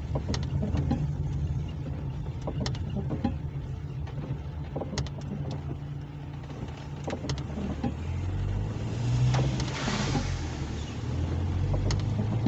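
Car being driven, heard from inside the cabin: a steady low engine and road rumble with scattered light clicks, and a swell of hiss about nine to ten seconds in.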